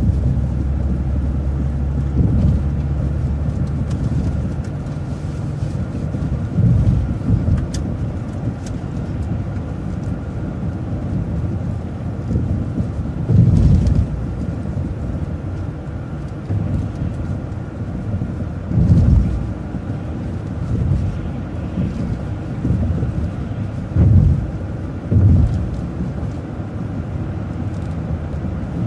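Transit bus driving along a road: a steady low engine and road rumble, with a few heavier low thumps spread through it.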